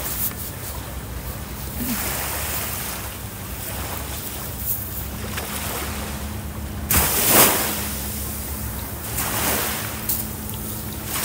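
Sea waves washing on a beach with wind on the microphone, rising to a louder surge about seven seconds in, over a faint steady low hum.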